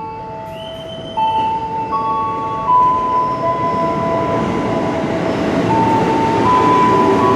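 A train approaching, its rumble growing louder from about a second in. Over it run long steady tones that step from pitch to pitch like a slow melody.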